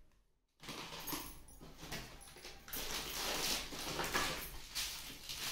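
Plastic packaging and a shopping bag rustling and crinkling as packets are handled, starting about half a second in and getting louder in the second half.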